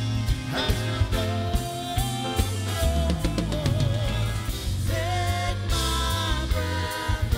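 Live band music: drum kit, keyboard and bass under a male singer's wavering sung line.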